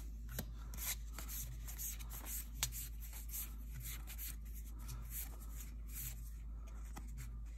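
Magic: The Gathering trading cards being flipped through by hand, one at a time. The paper cards slide and rub against each other with a run of soft, irregular flicks.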